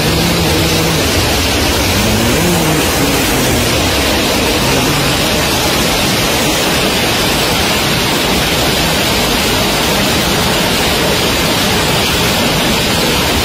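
Heavy rain pouring down in a steady, dense wash of noise. A few faint pitched sounds show through in the first couple of seconds.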